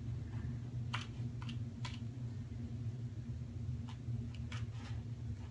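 A kitten digging in granular cat litter: short, scratchy scrapes in two bursts of about three each, over a steady low hum.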